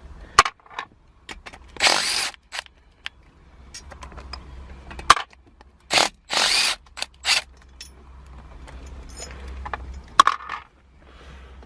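Sharp metallic clicks and clinks of hand tools and parts, with a few short scraping, rustling bursts, as the old shifter of a Nissan G35/350Z is unbolted and pulled out of the transmission.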